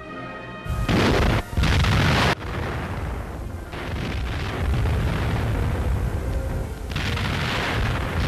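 Artillery fire: two loud blasts in quick succession about a second in, then a continuous rumble of shelling that swells again near the end. Orchestral music stops just before the first blast.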